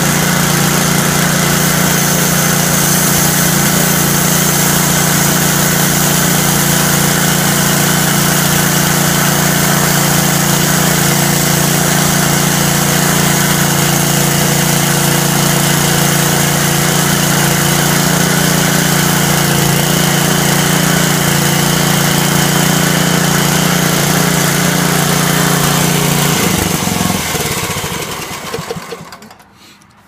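Engine of a portable band sawmill running steadily while the band blade cuts horizontally through an upright log to slice off a cookie. About 27 seconds in the engine is shut off and runs down over a couple of seconds.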